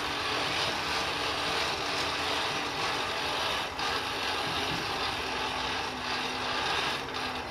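Hand-cranked forge blower turning steadily, a continuous geared whir and rattle with air rushing into a coal fire.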